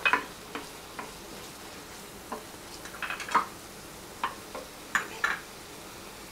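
Wooden spatula stirring and scraping chopped peppers, onion and green chilli around a frying pan in an irregular series of short scrapes, over a faint sizzle of the vegetables frying in sauce.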